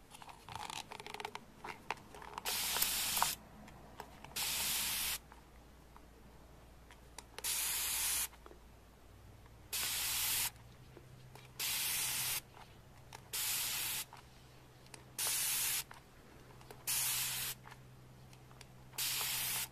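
Mist spray bottle spraying water onto houseplant leaves: nine short hisses of just under a second each, about every two seconds.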